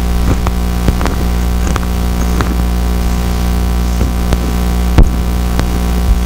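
Steady low electrical hum with a stack of even, unchanging tones, with light irregular knocks and taps over it, the loudest about five seconds in.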